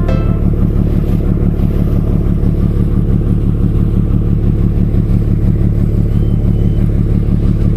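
A large engine running at a steady speed: a loud, even, low drone.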